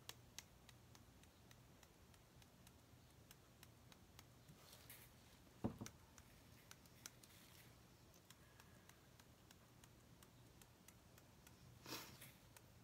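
Near silence with faint handling sounds of a small plastic glitter pot and a glass tumbler over paper: scattered light ticks, one soft knock about six seconds in, and a short rustle near the end.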